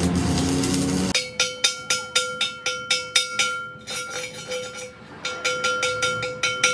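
A power tool running, cutting off about a second in, then a hammer striking a metal gearbox part in quick blows about four a second. Each blow rings at the same metallic pitch, with a short pause midway.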